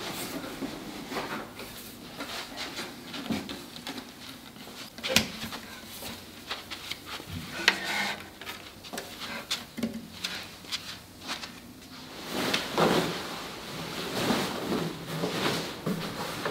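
Wooden dining chairs being lifted down off a wooden table and set on a carpeted floor, with scattered knocks and clunks of wood on wood, two of them sharp, about five and eight seconds in. From about twelve seconds in, the rustle of a linen tablecloth being spread over the table.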